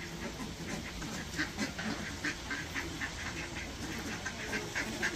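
Ducks quacking, a quick series of short calls, several a second, starting about a second in.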